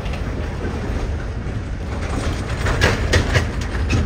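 Long freight train of double-stack cars rolling past, a steady low rumble with wheels clacking over rail joints, several clacks close together about three seconds in.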